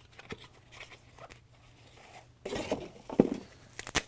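Cardboard packaging and a small speaker's protective wrap being handled and pulled apart. Faint scuffs and taps come first, then about a second of rustling and scraping about two and a half seconds in, with a sharp click in the middle of it and another click near the end.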